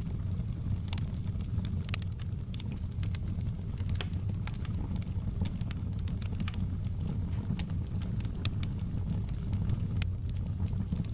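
Logs burning in a fireplace: a steady low rumble of flames with frequent, irregular sharp crackles and pops, one louder pop about ten seconds in.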